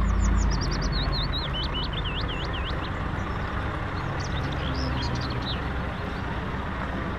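Scania S 650 truck's V8 diesel engine running as the tractor-trailer moves off slowly, a low rumble loudest at the start, with high chirps above it.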